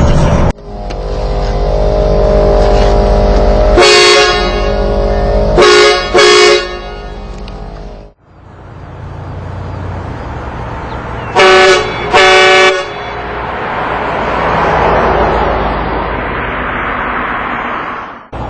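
Train-style air horn on a 1996 Cadillac STS sounded in short blasts: one about four seconds in, a quick double blast around six seconds, and another double blast near twelve seconds. A steady rumble and hiss runs between the blasts.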